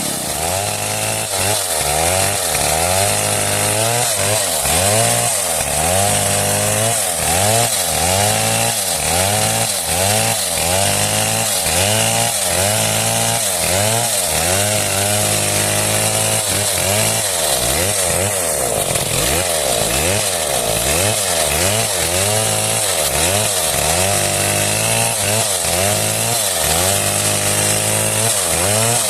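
Two-stroke chainsaw running hard through wood, its engine pitch dipping and recovering again and again, a little more than once a second, as the chain loads and frees in the cut.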